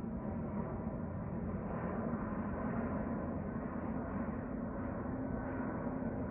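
Jet airliner flying over on approach to the airport, its engines a steady drone.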